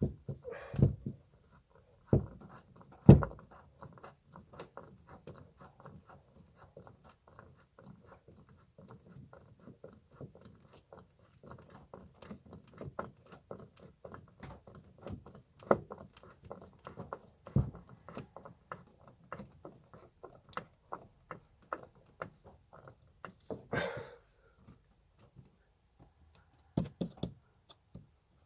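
Screw being driven into wood by hand with a screwdriver: a long run of quick small clicks and creaks, with a few louder knocks near the start and once more about two-thirds through.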